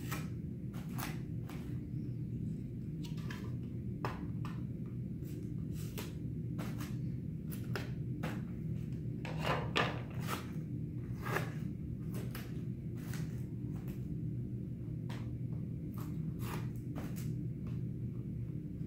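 Tape being peeled off a white plastic helmet piece by hand: irregular sharp crackles and ticks, a little louder about ten seconds in, over a steady low hum.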